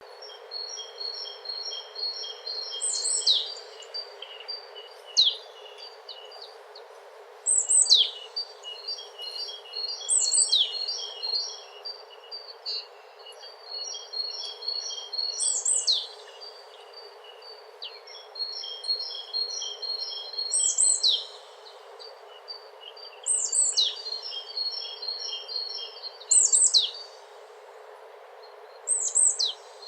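Small songbirds singing: fast trains of repeated high chirps, broken every few seconds by a sharp call that sweeps down in pitch, over a steady background hiss.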